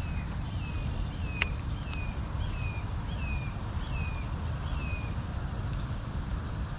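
A bird calling a run of about ten short, falling notes, roughly two a second, that stops about five seconds in, over steady outdoor background noise. A single sharp click comes about one and a half seconds in.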